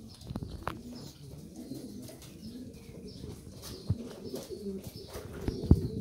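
Pouter pigeons cooing low and continuously, with a few sharp knocks; the loudest knock comes near the end.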